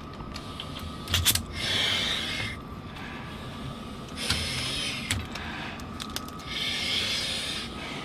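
Breathing through an emergency air breathing (EAB) mask: three hissing breaths of about a second each, roughly every two and a half seconds, with a few sharp clicks and a faint steady tone behind.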